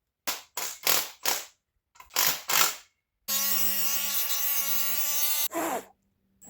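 Hand-tool work on a cast-iron engine block: half a dozen short, sharp strokes of metal on metal, followed about three seconds in by a handheld power tool running at a steady whine for about two seconds, which cuts off, then one more stroke.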